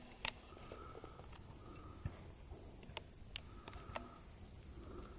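Steady high-pitched drone of insects, with a few faint sharp clicks scattered through it.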